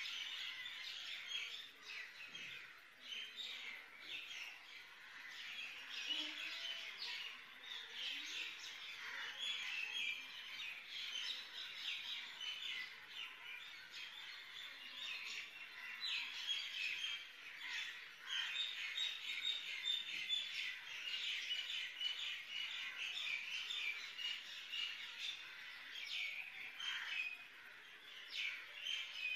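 Small birds chirping continuously, many short overlapping calls.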